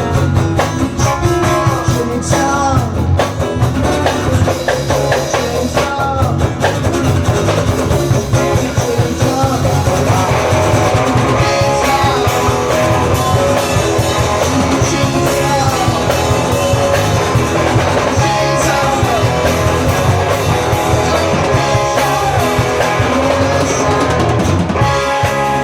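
Rock band playing live: electric guitar with bending notes over bass and drum kit.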